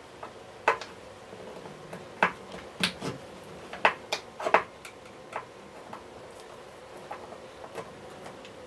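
Irregular sharp clicks and taps, about ten over the stretch, from a flat-bladed screwdriver engaging and turning the screws that hold a vacuum cleaner's motor to its case.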